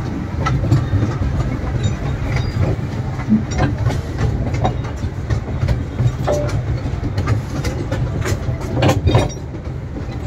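Amusement-park toy train running along its track, heard from inside an open carriage: a steady low rumble with irregular clacks and rattles from the wheels and the car.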